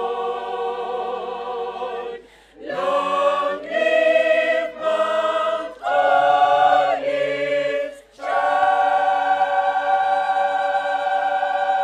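Choir singing slow, sustained chords in short phrases with brief breaks between them, moving into a long held chord about eight seconds in.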